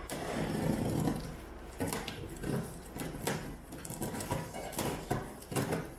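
Irregular knocks, clinks and rustling as the boxed parts of a stainless steel dish drainage rack are unpacked and handled.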